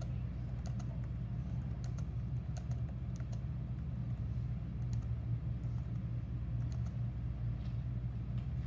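A steady low hum with scattered light clicks and taps, like keys being pressed.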